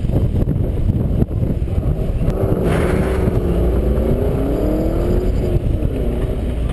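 Car engine heard from inside the cabin during an autocross run, pulling hard from the start. Its pitch climbs for a few seconds, then drops back about five seconds in, over a heavy low road and wind rumble.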